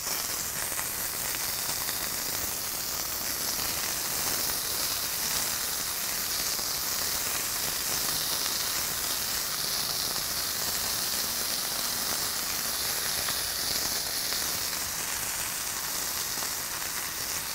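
Oil and a beef patty sizzling steadily on a hot flat-top griddle, with shredded cheese being sprinkled into the hot oil around the patty.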